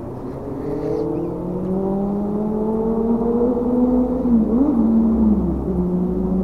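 Motorboat engine running, getting steadily louder as its pitch slowly rises, with a brief wobble in pitch about four and a half seconds in.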